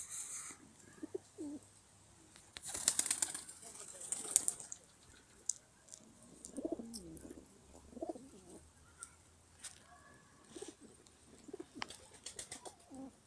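Feral pigeons cooing in low, repeated calls through the second half, with scattered sharp ticks between. There is a burst of rustling noise with sharp ticks about three seconds in.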